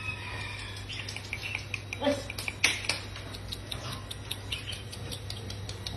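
Poodle puppies' claws clicking and pattering on a tiled floor as they scamper about: a quick, irregular run of sharp ticks.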